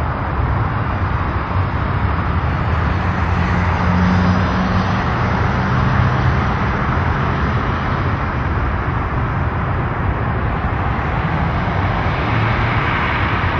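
Steady road-traffic noise: car engines running with a low hum and a continuous rumbling hiss of traffic.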